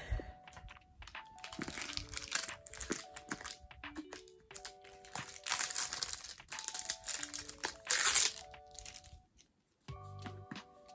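Plastic packaging crinkling and crackling in bursts as a slime package is opened, over soft background music.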